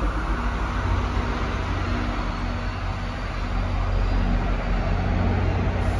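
NJ Transit passenger coaches rolling past along a station platform: a steady low rumble of steel wheels on the rails, with a faint humming tone that fades in and out.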